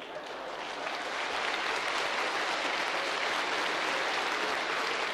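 Large audience applauding, swelling over about the first second and then holding steady.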